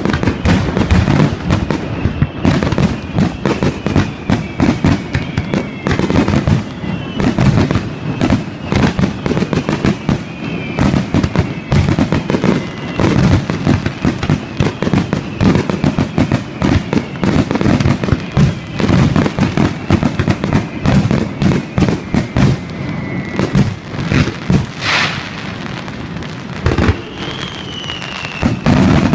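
Starmine fireworks barrage: a dense, rapid run of shell bursts and booms, with thin high whistling tones sliding down in pitch. The barrage thins out briefly near the end, then more bursts follow.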